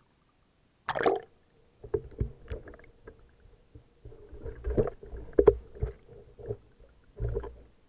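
Swimmer's camera plunging under the sea with a splash about a second in, then muffled underwater sounds: irregular thumps, knocks and bubbling from the swimmer moving beside the hull, over a faint steady hum.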